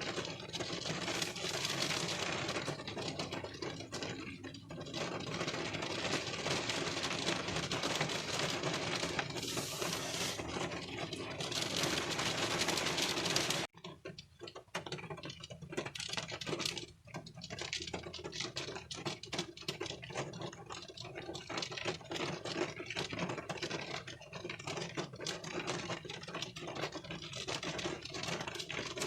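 Raindrops falling on a car's windshield, heard from inside the car: a dense, steady patter of many small ticks. About halfway through it breaks off abruptly and resumes lighter, with the single drop hits more distinct.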